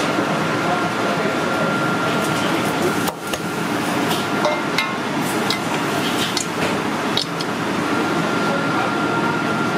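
Cleaver chopping through shellfish legs on a wooden cutting board: a few sharp knocks, spread through the middle of the clip, over steady kitchen background noise with voices murmuring.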